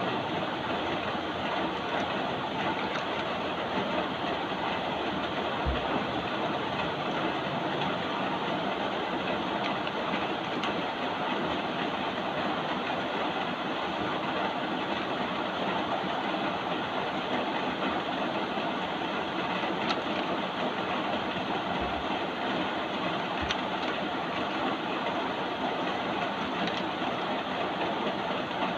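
Steady rain, an even hiss, with a few soft low thumps.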